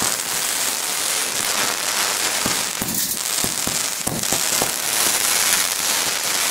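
Firework fountain spraying sparks: a continuous hiss with a dense, irregular crackle of small pops.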